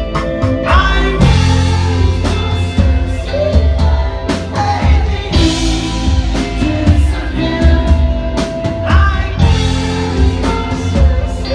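Live rock band playing with a singer: drums hitting steadily under guitars, bass and a sung vocal line.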